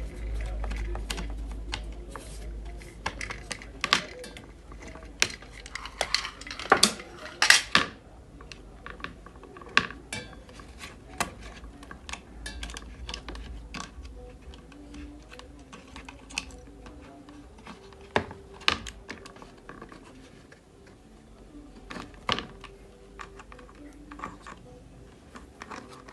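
Irregular clicks and taps of small tools and parts being handled on a repair bench, with a low hum in the first few seconds.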